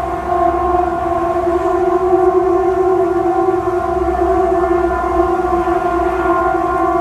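A loud, steady, horn-like drone on one held pitch with several overtones. It swells up around the start and then holds level: one of the unexplained 'strange sounds' the recordings capture.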